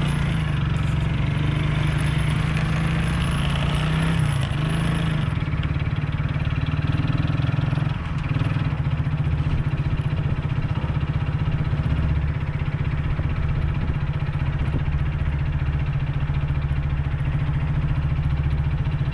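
Motorcycle engine running steadily, with a brief dip in level about eight seconds in.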